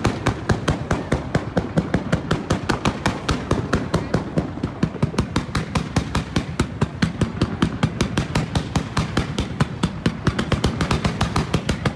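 Fireworks fired in a rapid barrage from the ground: a fast, steady volley of sharp bangs, about five or six a second, with no let-up.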